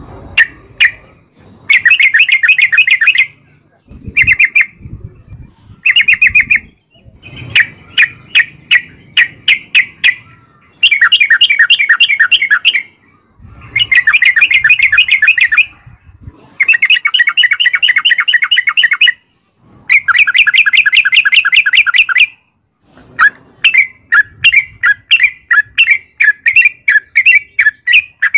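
Yellow-vented bulbul (trucukan) singing its rapid chattering song in runs of quick bubbly notes, each run lasting one to two and a half seconds with short pauses between, loosening into separate notes near the end. This is the long 'ropel' song used as a lure to draw other bulbuls into answering.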